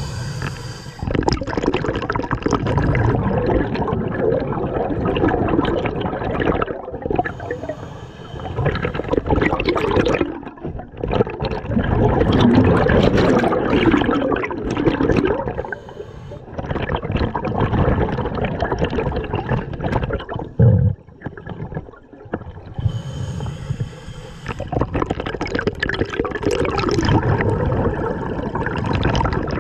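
Scuba diver's regulator exhaling bubbles underwater: long rushing bursts lasting several seconds, broken by short quieter gaps for the breaths in.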